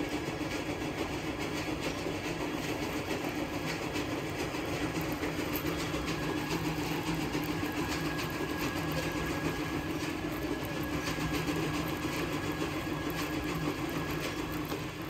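A motor running steadily with a constant low hum.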